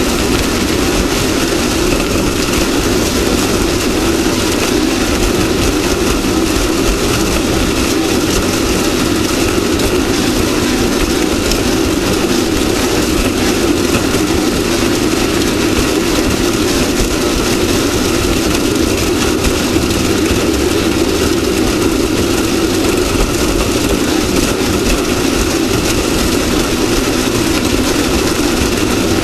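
Off-road race vehicle's engine running steadily at speed under a dense, even wash of road and wind noise, with no pauses or changes in pitch.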